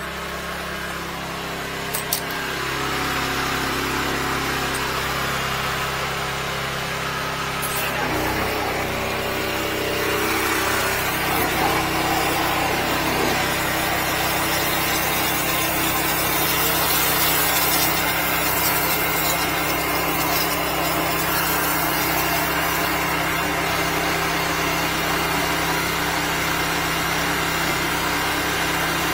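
The 13-horsepower engine of a high-pressure drain jetter running steadily while its hose and nozzle blast through grease in a clogged drain, with a hiss of water spray over the engine. The engine note shifts about eight seconds in.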